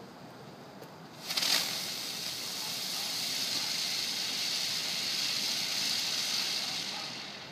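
A ground firework catching about a second in and spraying sparks with a loud, steady hiss, which tails off near the end.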